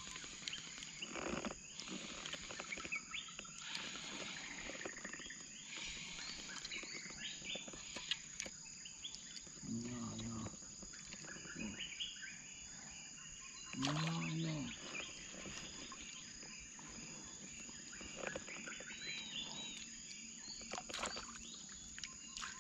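Riverside forest wildlife at dawn: many short bird chirps and insect calls. Two short deep calls stand out, about ten and fourteen seconds in.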